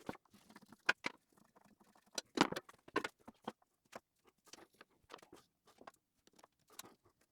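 Scattered light clicks and knocks of metal covers and parts being handled on a surface grinder's spindle housing, with a louder clatter about two and a half seconds in.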